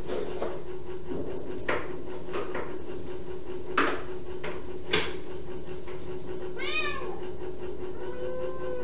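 Kitten meowing once, a short high call falling in pitch about two-thirds of the way through, after a few sharp knocks or clicks, over a steady hum.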